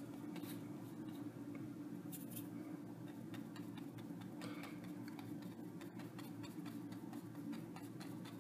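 Light, irregular ticks and short scratches of a liner brush laying highlight strokes on a stretched canvas, over a low steady hum.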